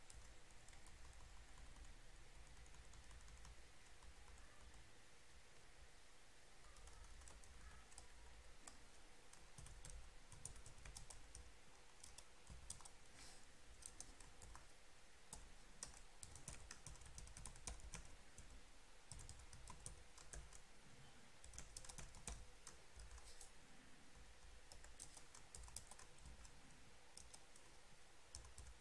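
Faint typing on a computer keyboard in short runs of keystrokes, sparse at first and busier from about seven seconds in, over a low steady hum.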